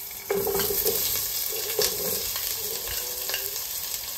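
Chopped onion sizzling in hot oil in a frying pan, stirred with repeated scraping strokes of the utensil across the pan.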